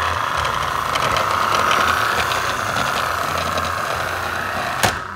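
Battery-powered toy shark car's electric motor and gears whirring steadily as it drives across a wooden floor, with a rattle of small clicks from the drivetrain and wheels. A single sharp click comes near the end.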